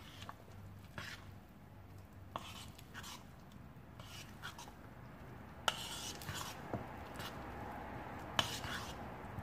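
A fork stirring grated carrot into cake batter in a ceramic mixing bowl, scraping and clinking against the bowl. Two sharp clinks stand out, about six and eight and a half seconds in.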